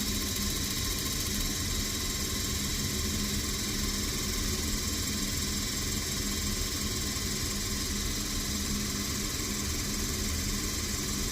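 Commercial gas boiler's combustion fan running with a steady hum during an ignition attempt, the boiler not lighting.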